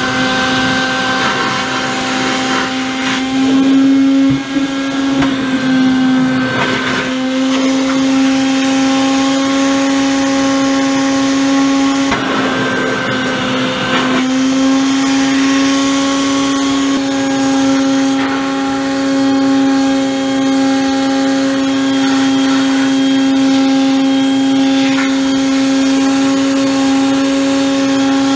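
Small wet/dry shop vacuum running as a blower, a steady motor whine with air rushing through its hose, blowing air into a flooded gas water heater's combustion chamber to dry it out. The rush of air changes briefly about twelve seconds in as the hose is moved.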